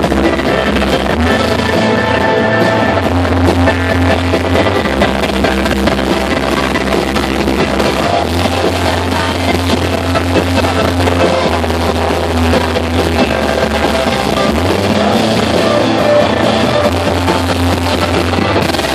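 Live rock band playing amplified electric guitar over held bass notes that change every few seconds, with little or no singing.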